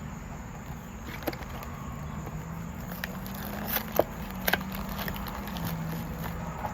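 Fruit-snack packaging being handled: scattered sharp clicks and light crinkles, the loudest about four seconds in, over a low steady background hum.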